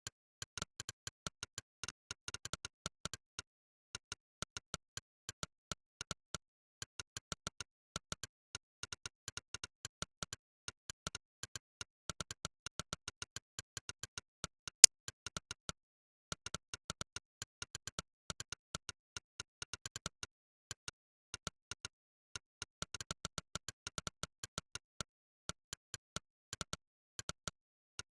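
Monkeytype's synthetic 'click' keypress sound effect, one short click per keystroke at an uneven typing pace of several clicks a second, with a few brief pauses. One click about 15 seconds in is much louder than the others.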